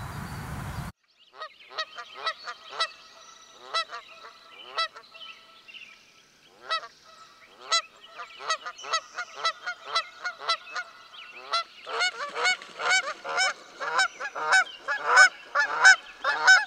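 A flock of Canada geese honking. Separate honks come at first, and they grow into many overlapping, louder calls in the last few seconds.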